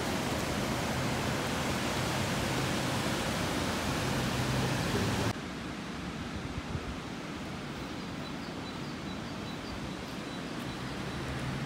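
Steady rushing noise of flowing river water. About five seconds in it cuts abruptly to a quieter, duller hiss.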